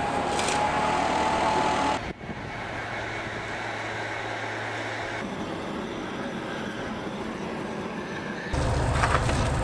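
Road-repair machinery in short takes. First a backpack blower's small engine runs loudly with a steady whine, blasting debris out of a pothole. Then a quieter steady machine hum follows, and about eight and a half seconds in a much louder, low-pitched engine noise sets in.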